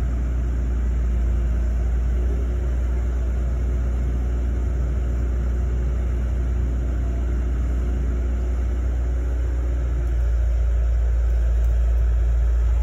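Hitachi excavator's diesel engine running steadily with a deep rumble, getting slightly louder about ten seconds in.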